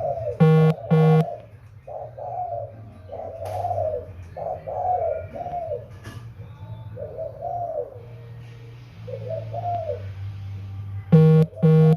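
Young dove cooing over and over in short arching notes, the calls of its circling courtship display, with two loud, sharp double notes near the start and again near the end. A steady low hum runs underneath.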